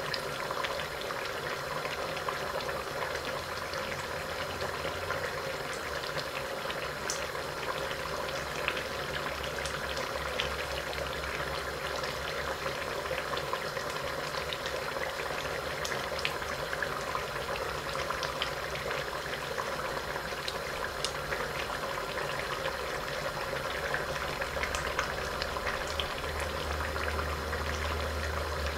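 Duck karahi bubbling under the lid of an iron karahi on a gas burner: a steady simmer with many small pops.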